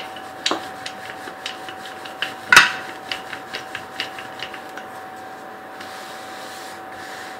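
Wooden rolling pin rolling out a paratha dough ball on a floured countertop: rubbing strokes with scattered clicks and knocks, the loudest a sharp knock about two and a half seconds in, easing off near the end as the dough is lifted and turned.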